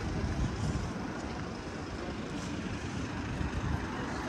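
Central London street noise: a steady low rumble of passing traffic under a general hiss of the busy street.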